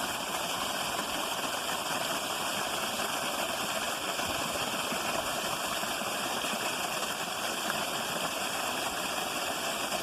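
Steady rushing of creek water, an even hiss with no breaks.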